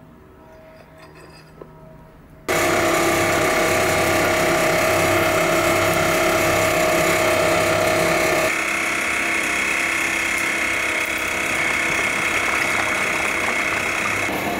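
Electric blower forcing air into a charcoal forge, running with a steady whirring hum and rush of air while a knife blade heats in the coals. It starts abruptly after a quiet first couple of seconds, and its tone shifts slightly past the middle.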